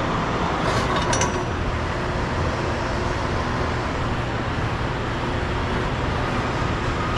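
Steady rumble and hiss of vehicles and machinery in a large truck loading shed, with a brief clatter about a second in.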